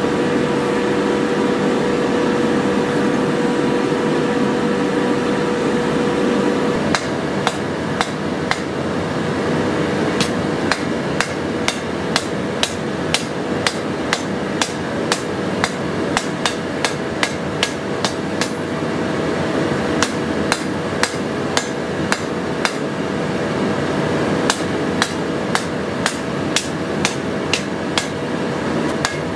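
Steady rushing noise of the forge, then, about seven seconds in, a long run of sharp hammer blows on the steel sword blade, roughly one to two a second with short pauses, as the blade is forged.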